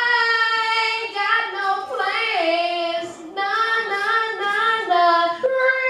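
A woman singing into a microphone without accompaniment, in long held notes that slide from one pitch to the next.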